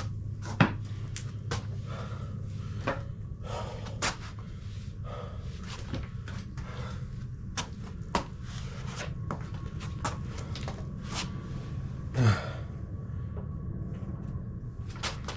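Scattered light knocks and clicks over a steady low hum, with a short falling squeak near the end.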